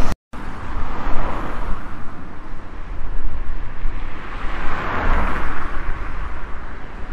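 Crane tow truck running outdoors while its loading crane lifts a car: a steady, noisy engine-and-street hum with a low rumble. It swells about a second in and again around five seconds in, after a brief dropout at the start.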